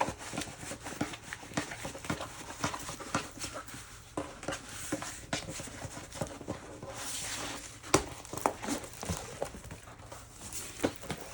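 Rustling and tapping from a rolled diamond painting canvas being handled and rolled back against its curl to flatten it, with many small clicks and a sharp knock about eight seconds in.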